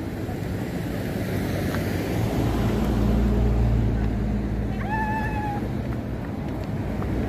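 Low, steady engine rumble of road traffic, likely a heavy vehicle nearby, swelling about two and a half seconds in and easing near the end. About five seconds in comes one short, high call, under a second long.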